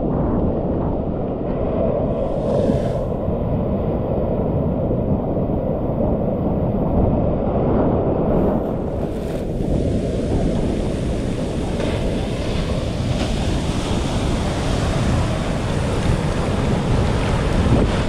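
Ocean surf washing around the camera at water level in the shallows: a steady churning rush of waves and foam, turning brighter and hissier about halfway through as the breakers get closer.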